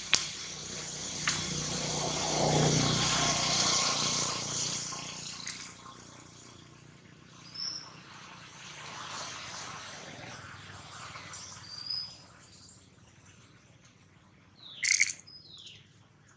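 Outdoor ambience with a few short bird chirps over a steady hiss, a louder noisy stretch in the first few seconds, and a short, sharp high call near the end.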